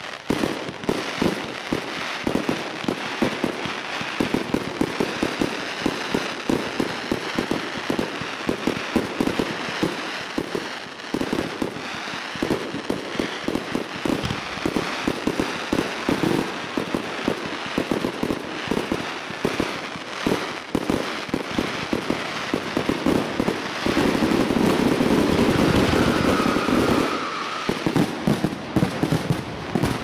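Professional fireworks display: many shells bursting in rapid succession, dense bangs mixed with crackling. About three-quarters of the way through the bursts merge into a louder, continuous stretch for a few seconds.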